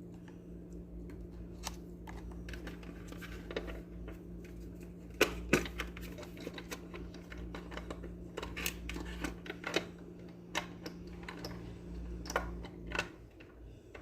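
Scattered clicks and taps of plastic blender parts being handled and pressed into a groove during reassembly, over a steady low hum that stops near the end.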